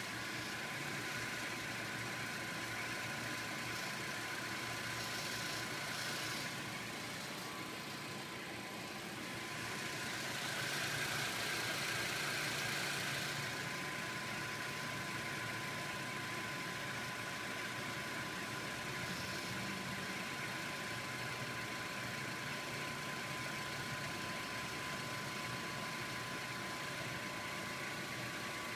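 2012 Honda Civic idling while parked, with a steady faint tone and a sparse, rustling abnormal noise from around the right front wheel; the hiss swells louder for a few seconds about ten seconds in.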